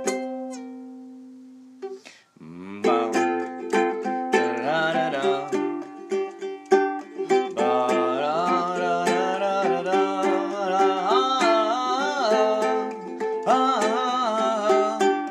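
Ukulele music, strummed and picked. A chord rings out and fades over the first two seconds, then after a short break a busier riff starts, with a wavering melody line over the strings.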